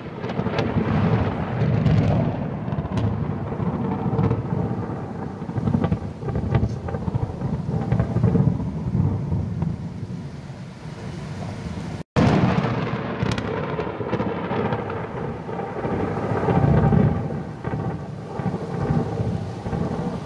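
Rolling thunder rumbling almost without pause, swelling and fading, over falling rain. The sound drops out for an instant about twelve seconds in and comes straight back loud.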